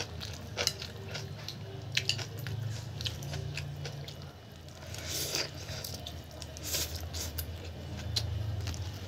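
Close-up eating sounds of a person chewing and slurping instant noodles, with small clicks of plastic chopsticks against the plate. Two brief slurps come about five and seven seconds in, over a steady low hum.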